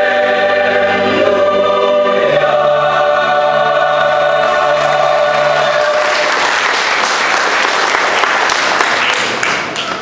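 Mixed choir holding a final sung chord, which ends about six seconds in; the audience then applauds.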